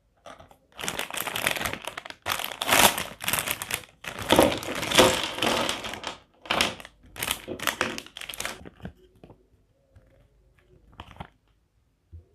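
Packaging crinkling and rustling as it is handled and opened, in a string of bursts that die down after about nine seconds, with one short rustle near the end.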